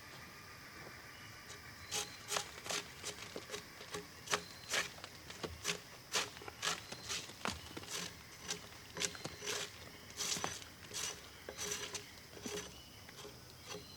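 Brushing and scraping strokes on the bark surface of a white oak log, clearing off dirt and debris: a quick run of short, scratchy strokes, about two a second, starting about two seconds in.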